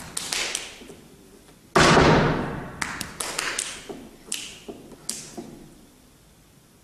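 Unaccompanied flamenco dance percussion: one heavy thud on the stage about two seconds in, then a run of sharper taps and claps that thin out, each echoing in the hall.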